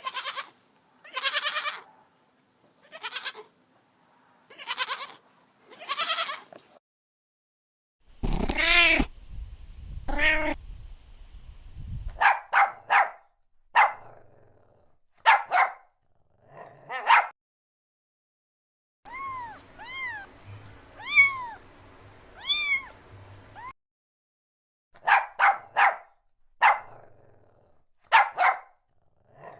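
Animal calls in several separate short clips with silent gaps between them. Most are short pitched calls that rise and fall in pitch; among them is a run of repeated arching calls.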